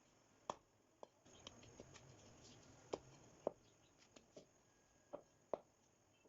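Faint, scattered light clicks and taps of something being handled, about ten in all at irregular intervals, with a soft rustle between about one and four seconds in.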